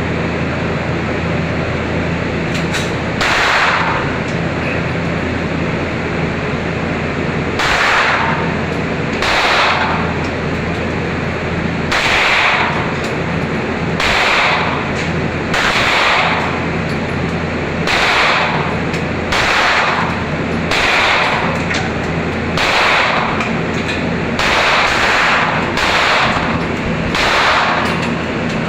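Gunshots on a shooting range, about fourteen of them at irregular intervals of one to three seconds, each with a short echo, over a steady low hum.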